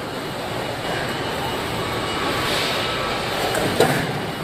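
Steady machinery noise of a car body-assembly shop floor, with industrial robots and plant running, and one sharp knock about four seconds in.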